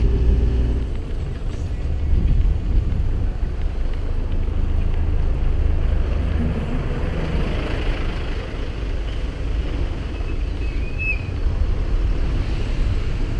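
Steady wind rumble on a body-worn camera's microphone while cycling along a road, with a motor vehicle's engine hum in the first second.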